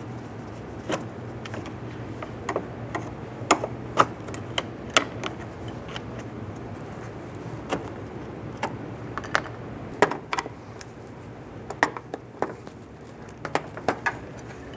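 Plastic push-pin retainers on a plastic radiator cover being turned and pried out with screwdrivers: irregular sharp plastic clicks and ticks, a dozen or more, over a steady low hum.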